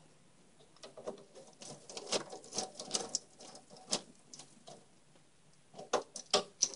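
Small metal PC screws clicking and rattling against each other as they are handled, in a busy spell of irregular clicks from about a second in, then a few sharper clicks near the end.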